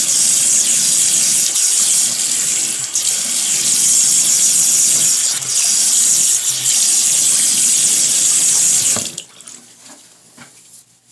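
Water running hard from a tap, rinsing shampoo out of hair, then shut off abruptly about nine seconds in.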